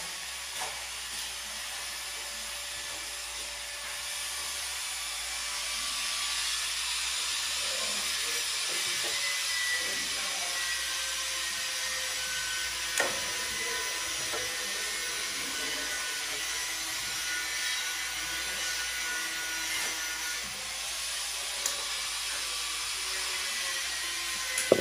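A steady hiss from an unseen machine or appliance runs throughout, with a few light clicks and knocks, the loudest about halfway through and near the end, as a recessed LED ceiling panel and its clips are handled and pushed into the ceiling cut-out.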